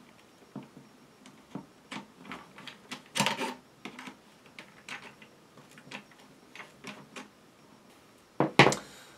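Irregular light clicks and scrapes of a screwdriver turning a screw in the plastic monitor mount of an RC transmitter, with a louder run of clicks about three seconds in. Near the end come two or three sharp, loud knocks.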